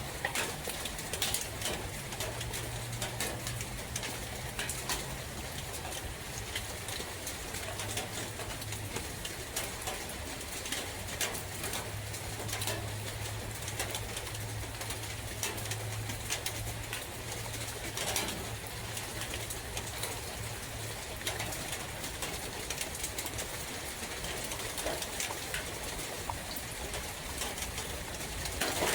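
Rain falling in a forest, a steady hiss with many scattered drops and drips. A low hum comes and goes under it through the first two-thirds.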